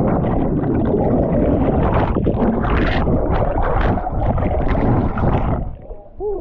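Loud churning, gurgling water noise, as heard with the microphone plunged into the water after a cliff jump. It drops away sharply near the end.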